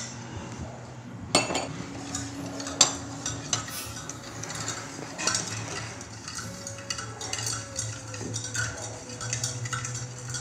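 Steel spoon stirring juice in a small stainless steel pot, with irregular clinks of metal on metal against the pot's sides. Two louder clinks come in the first three seconds.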